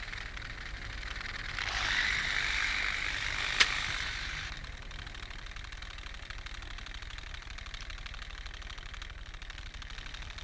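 Syntelmann tele-manipulator's mechanical hand squeezing a thin metal ring with about 120 pounds of pressure: a hiss of machinery swells for about three seconds, with one sharp click partway through as the ring gives way. A low steady hum lies under it.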